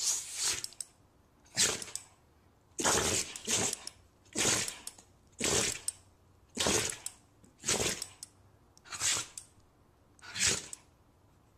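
A dog sneezing over and over, a string of about nine short sneezes roughly one a second.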